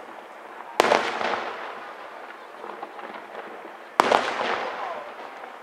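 Two loud fireworks bangs about three seconds apart from an aerial fireworks display, each trailing off in a long echo.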